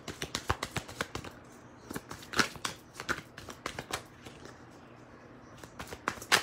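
Tarot deck (the Gilded Tarot) being shuffled by hand: cards slapping and sliding against each other in quick, irregular clicks. The clicks come in a few short spells with a quieter stretch between them.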